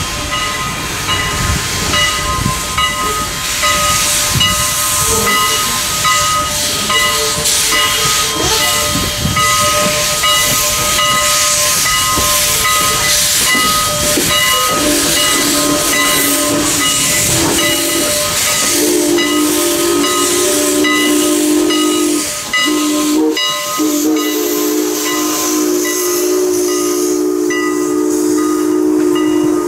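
Canadian National 89, a 2-6-0 steam locomotive, hissing steam and working as it pulls out. About halfway in its PRR three-chime whistle starts blowing, a chord of several notes in long blasts broken three times, as the train rolls past.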